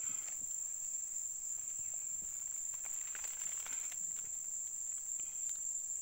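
Insects shrilling in one steady, unbroken high-pitched tone, with a few faint ticks and rustles around the middle.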